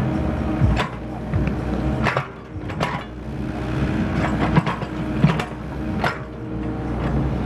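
Mini excavator's diesel engine running steadily while its bucket digs, with several sharp knocks and clunks at irregular moments from the bucket and linkage striking rocky earth.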